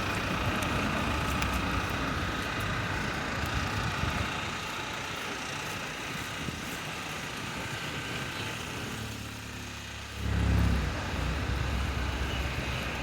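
Street traffic noise, with a vehicle's low engine rumble swelling loudly about ten seconds in, then easing off.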